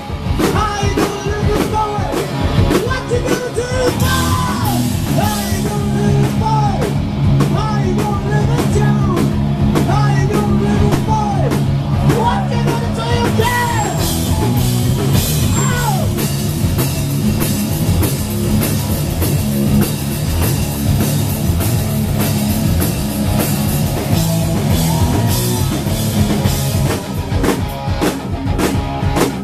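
Live rock band: loud electric guitar and drum kit, with a man singing over them through the first half or so, then guitar and drums carrying on without the voice.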